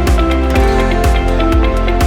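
Background music with a steady beat, guitar and a strong bass line.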